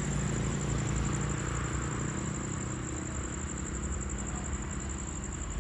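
State Railway of Thailand QSY-class diesel-electric locomotive running as it approaches from a distance: a steady low engine rumble.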